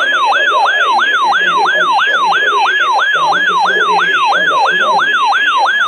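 Electronic alert tone of a weather radio warning broadcast, a loud warbling tone sweeping up and down about four times a second without a break.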